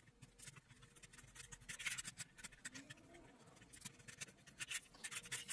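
Screwdriver turning screws out of the plastic underside of a Plarail toy train car: faint scraping and clicking, in a few short clusters.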